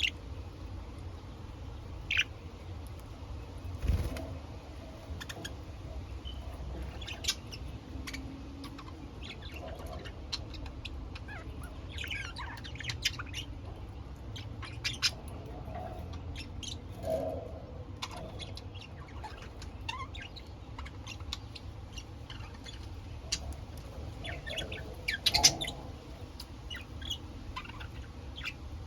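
Pet budgerigars chirping in short, scattered calls, a few sharper ones standing out about 2, 13 and 25 seconds in, over a steady low hum.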